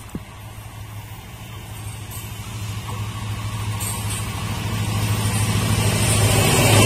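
An EMD WDP4D diesel-electric locomotive's 16-cylinder two-stroke engine drones as the train approaches, a steady low tone growing louder throughout. Near the end, the rush of wheels on rails builds as the locomotive draws level.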